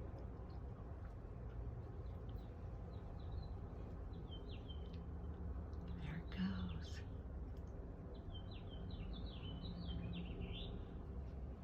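Small birds chirping in short, repeated high phrases in two spells, over a steady low background hum, with one brief louder sound about six seconds in.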